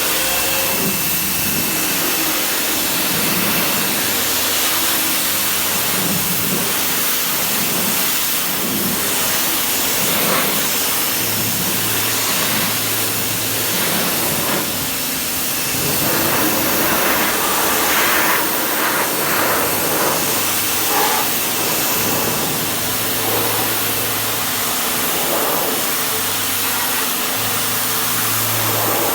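Bauer 2000 psi electric pressure washer spraying: a steady loud hiss of the water jet with the electric pump motor's hum underneath. A leak in the hose keeps it below full pressure.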